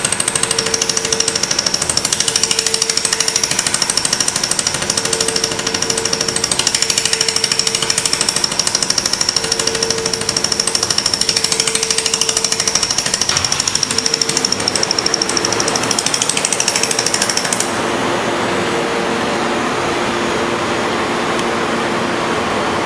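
500 W automatic laser welding machine firing its laser in a rapid train of pulses, a dense, loud crackling buzz with a steady high whine, as it welds a stainless steel cup on a rotary jig. About 17 to 18 seconds in the pulsing stops, leaving a steady hiss.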